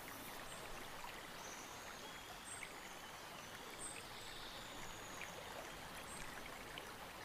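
Faint steady wash of river water rippling and lapping, with short high chirps now and then.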